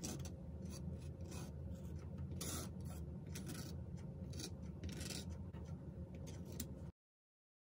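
Metal palette knife scraping and spreading thick acrylic paint across a canvas panel in a series of short, irregular strokes, over a steady low hum. The sound cuts off abruptly near the end.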